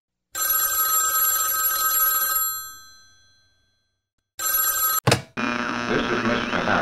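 Old-style telephone bell ringing twice. The first ring lasts about two seconds and fades out. The second is cut short about five seconds in by a sharp click as the phone is picked up, followed by a noisy din with wavering whistles.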